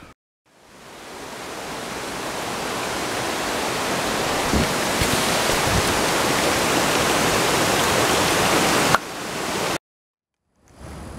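Steady rushing of water from a stone fountain's spout pouring into its trough, fading in over the first couple of seconds, with a few dull thumps midway. It cuts off abruptly about nine seconds in, and after a short silence a quieter, similar rushing comes back near the end.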